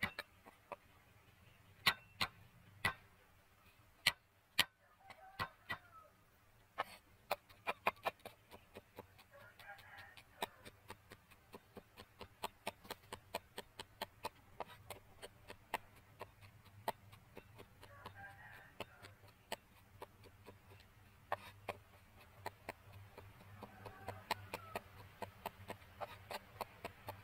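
Steel cleaver striking a round wooden chopping block: first a few heavy, spaced whacks as the garlic cloves are crushed under the flat of the blade, then from about seven seconds in steady chopping at a few strokes a second as the garlic is minced. Chickens cluck faintly in the background now and then.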